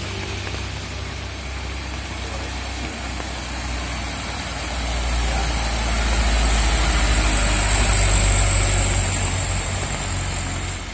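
Diesel engine of a light cargo truck running at low revs as it climbs past on a wet road, growing louder from about halfway as it comes close. A steady high thin whistle sits over the engine and is loudest while the truck is nearest.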